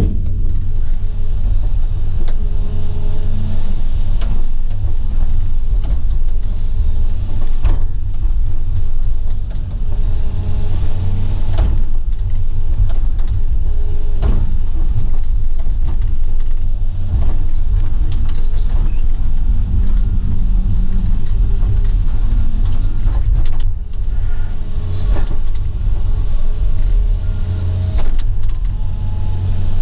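Excavator's diesel engine running steadily under load while it strips topsoil, with occasional sharp knocks from the bucket and machine working.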